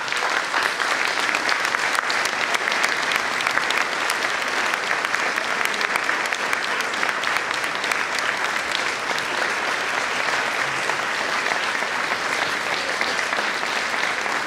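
Audience applauding steadily and at length, a dense even patter of many hands clapping.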